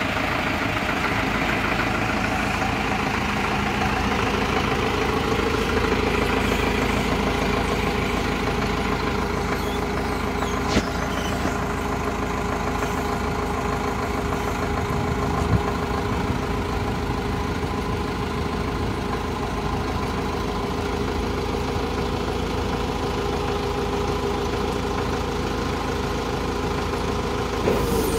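Diesel engine of a 2009 TCM FD70-2 forklift running steadily, with a few short clicks along the way.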